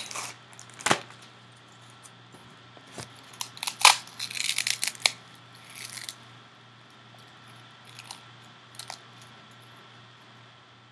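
Scattered clicks, crinkling and crunching from hands handling food and its packaging, with one sharp knock about four seconds in and a short burst of crackling right after it.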